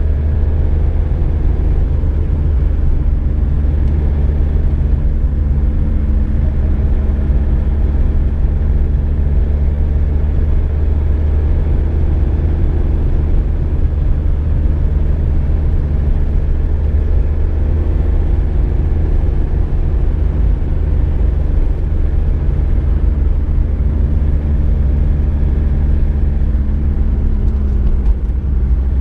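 Car being driven at a steady speed: an even low rumble of engine and road noise with a constant engine hum, no revving or gear changes.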